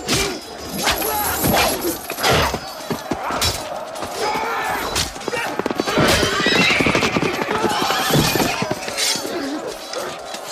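Film battle soundtrack: horses whinnying and men shouting and screaming, with many sharp clashes and thuds of close fighting, a loud high cry about six seconds in.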